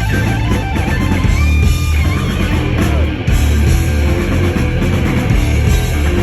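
Loud hard rock played live by a full band: electric guitar over heavy bass and drums, with a held, wavering lead note a little over a second in.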